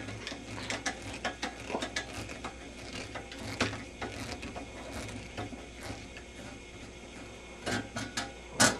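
A screwdriver turning a screw out of the sheet-metal plate covering the bottom of a Philco 37-611 radio chassis: a run of small, irregular clicks and metal ticks, with a louder knock near the end.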